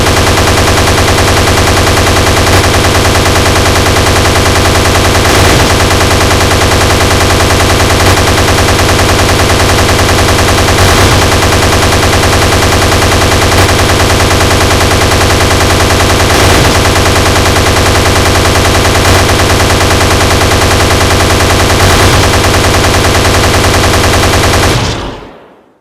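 Sustained rapid automatic gunfire, as a sound effect: an unbroken, very loud rattle of shots with a heavier accent about every two to three seconds, fading out in the last second.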